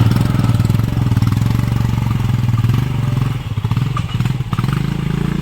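Motorcycle engine running steadily under load while the bike is being ridden, with a dense, even throb.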